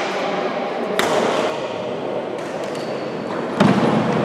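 Badminton rackets hitting a shuttlecock during a doubles rally, with one sharp hit about a second in and fainter hits later, over the steady background noise of an echoing sports hall. A louder, duller thud comes near the end.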